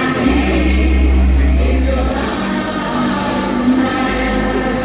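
Music with a choir singing held notes over long, deep bass tones.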